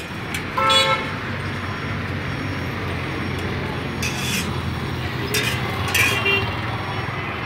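Street traffic: a vehicle engine running low and steady, with a short horn toot about half a second in. A couple of brief hissy scraping noises come later.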